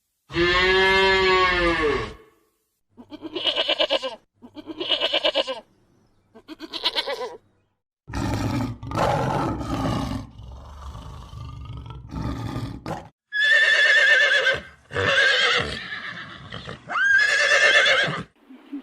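A run of livestock calls from different animals, one after another with short gaps: first a long call that rises and falls in pitch, then three short pulsed calls, then several more loud calls near the end.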